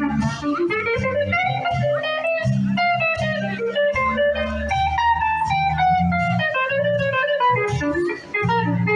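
Live band playing amplified music, with an electric guitar carrying a melodic line that rises and falls over a low bass and drums.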